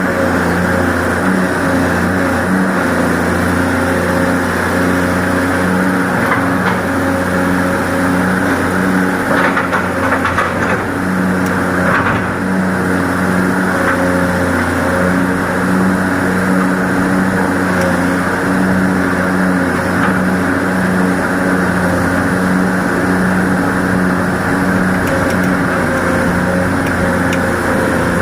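Excavator's diesel engine running steadily under digging load, with a few brief knocks near the middle.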